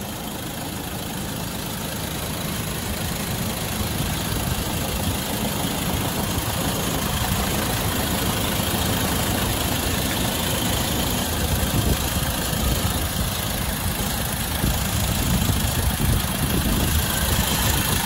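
The 2.2-litre four-cylinder turbodiesel of a 2014 Land Rover Defender 90 2.2 TDCi idling steadily at full operating temperature, heard from over the open engine bay. It grows a little louder over the first few seconds.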